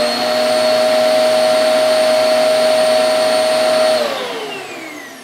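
Hoover Eco G Turbo Power bagless upright vacuum cleaner running at full speed with a steady whine, not a high-pitched scream. About four seconds in it is switched off, and the motor winds down with a falling whine.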